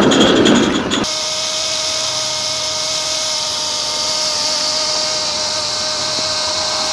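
Live-steam garden railway locomotive hissing close by. About a second in the sound changes abruptly to a steady high hiss with a thin steady tone beneath it, held for several seconds.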